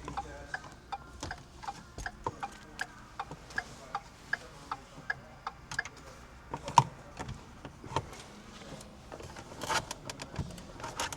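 Steady, regular clicking from a Ford F-150's HVAC blend door actuator, about two or three clicks a second, the rapid tapping of a failing actuator with stripped internal plastic gears. One louder knock comes about seven seconds in, and a short stretch of handling noise comes near the end.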